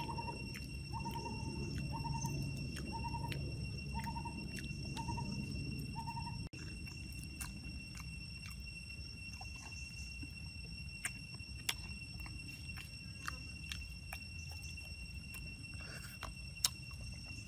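A forest bird hooting in a steady series, one short low note about once a second, over a constant high-pitched insect drone. The hoots stop abruptly about six seconds in, leaving the insect drone and scattered small clicks.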